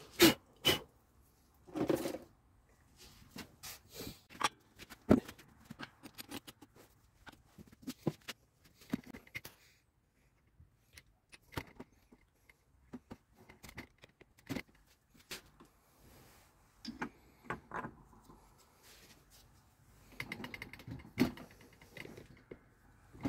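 Hand tools and small metal parts being handled: irregular clicks, clinks and knocks, the loudest near the start and a couple more around the middle and near the end.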